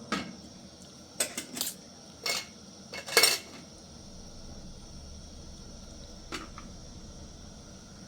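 Dishes and cutlery clattering: a run of sharp clinks and knocks over the first few seconds, loudest in a cluster just after three seconds, then one more light clink about six seconds in.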